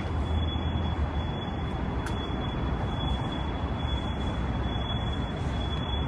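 Steady low rumble of city traffic with an even background hiss and no distinct events.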